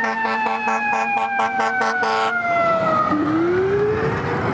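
Fire engine siren: a wailing tone sliding slowly down, with a rapid pulsing yelp laid over it for the first two seconds or so, then winding back up in pitch near the end.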